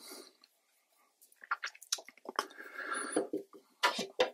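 Watercolour brush stirring and scrubbing wet ultramarine blue in a paint-box mixing well: soft, wet, squishy strokes, with a few small clicks near the end.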